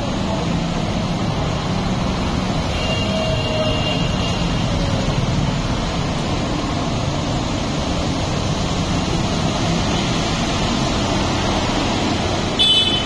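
Steady traffic noise from motorcycles and an auto-rickshaw running through an underpass, with a brief high-pitched beep near the end.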